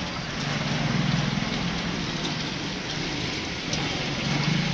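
Potato chips frying in a deep fryer of hot oil: a steady sizzling hiss, with a low hum underneath.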